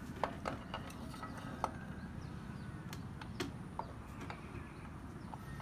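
Light metallic clicks and taps, about a dozen at uneven intervals, from small engine parts being handled and fitted during a motorcycle engine assembly, over a steady low hum.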